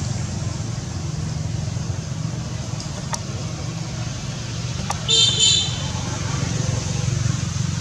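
Steady low rumble of road traffic, with two faint clicks and, about five seconds in, a brief loud high-pitched double squeal.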